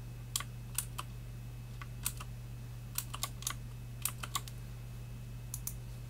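Ozone Strike Pro mechanical keyboard with clicky Cherry MX Blue switches and thin stock ABS keycaps, struck in scattered keystrokes: about fifteen sharp clicks in short irregular groups with pauses between them.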